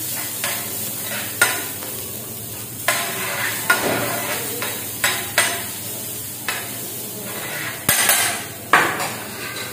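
Sliced vegetables sizzling in oil on a flat kottu griddle while a metal ladle scrapes and knocks against the plate, pushing them around. The sharp, irregular clacks of the ladle are loudest near the end.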